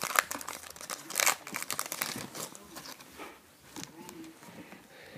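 Crinkling and rustling of a foil trading-card pack wrapper and cards being handled: a run of quick crackles, busiest in the first two seconds and thinning out after.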